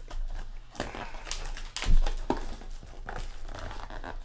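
Cardboard trading-card box and cards being handled and opened: rustling and scraping with a few sharp taps and knocks, the loudest about two seconds in.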